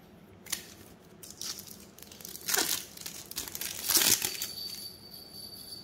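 Trading-card pack wrappers being torn open and crinkled: a few short rips and rustles, the loudest about two and a half and four seconds in. A faint, steady high tone comes in near the end.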